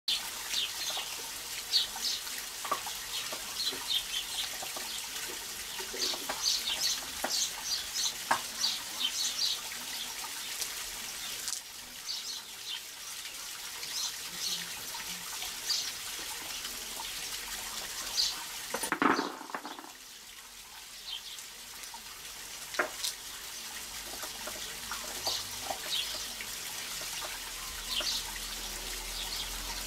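Steady trickling water with many short, high chirps from small birds scattered throughout. About 19 seconds in there is one brief, louder rushing sound.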